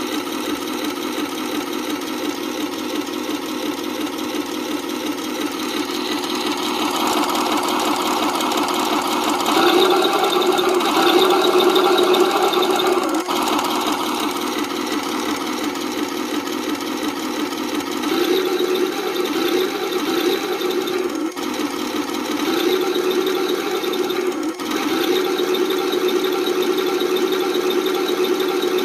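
Simulated tank engine sound from an RC Tiger I model's sound unit, played through its small built-in speaker: a steady rhythmic idle that revs up for several seconds about a third of the way in, then surges briefly a few more times.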